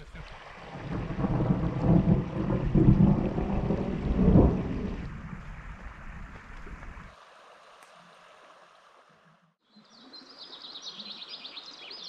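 Thunder rolling over steady rain: the rumble builds about a second in and dies away over several seconds, leaving the rain alone and softer. Near the end, after a break, rapid high chirping takes over.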